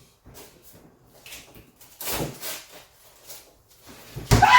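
Knocks and scrapes from handling a large boxed fridge freezer and its packaging, with a louder scrape about two seconds in and a heavy thump near the end.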